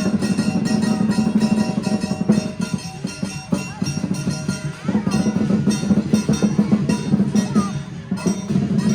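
Lion dance percussion: a big drum beaten in a fast, continuous roll, with cymbals and gong ringing over it.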